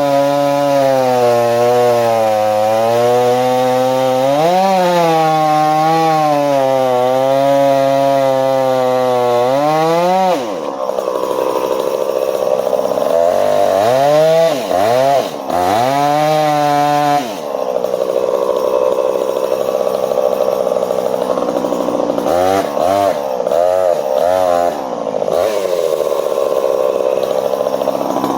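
Two-stroke chainsaw running at high revs for about ten seconds, its pitch sagging and recovering as it cuts wood under load. After that it is let off and throttled back up several times in quick succession, with stretches of steady hard running between.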